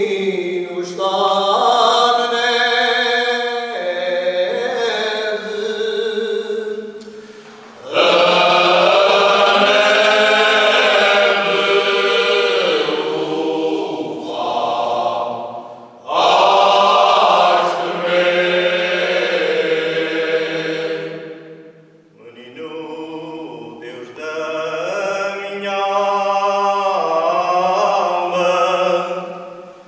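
Cante alentejano: a men's choir singing unaccompanied in long, slow, drawn-out phrases. A quieter opening phrase gives way to the full choir coming in loud about eight seconds in, with short breaks for breath between phrases.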